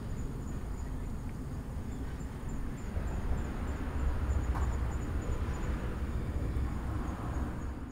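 Outdoor background noise: a steady low rumble with a faint, thin high-pitched tone above it, and a single faint tick about halfway through.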